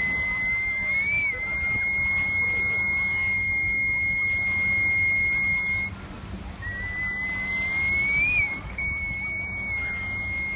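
Two long, high, steady whistle notes blown on a small hand-held wind instrument. Each note starts a little low, slides up, lifts briefly and then holds. The first breaks off about six seconds in, and the second starts less than a second later. Water sloshes faintly underneath.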